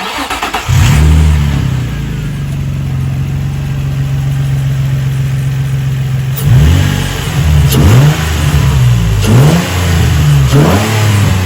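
Nissan 350Z's VQ35DE 3.5-litre V6 with the stock airbox catching about a second in and settling into a steady idle, then revved four times in quick blips, each rising and falling back, in a sound test of the stock intake.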